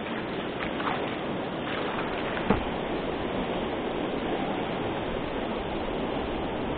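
Steady rush of river water pouring over a rock ledge, heard from a kayak close below it. A single sharp knock sounds about two and a half seconds in.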